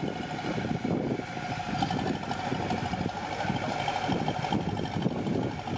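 Diesel engine of earthmoving machinery running steadily.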